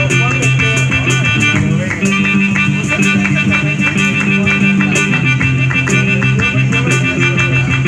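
Instrumental passage of a small live band: a melodica playing long held notes over a hollow-body electric guitar, with a cajon and a hand shaker keeping a steady beat.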